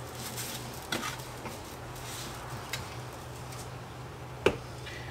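Seasoning shaken from a shaker onto raw beef: a faint patter with a few light clicks, and a sharper click about four and a half seconds in.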